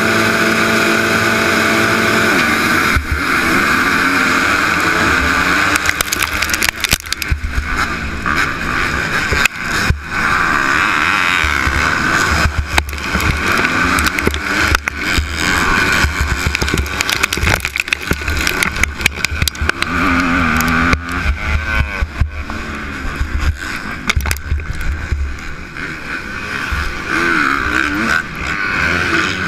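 Motocross bikes holding revs at the starting gate, then a 250-class motocross bike racing hard in a pack, its engine rising and falling through the gears. Heavy wind buffeting and knocks on the helmet-mounted camera's microphone run through it.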